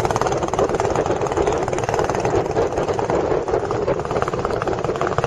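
Tour boat's engine running steadily, a fast even firing beat.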